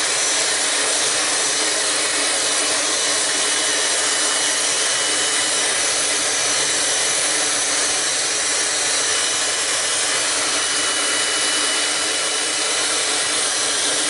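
Dyson Supersonic hair dryer running steadily on its medium fan and medium heat setting: an even rush of blown air with a thin high whine over it.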